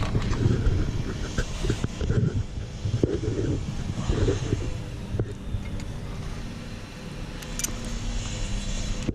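Low rumble of wind on the microphone, with scattered small clicks and knocks from hands fitting a coax cable's F-connector onto a rooftop TV antenna.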